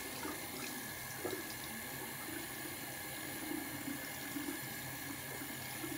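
Bathroom sink faucet running steadily into the basin, with light splashing as a face is rinsed under it.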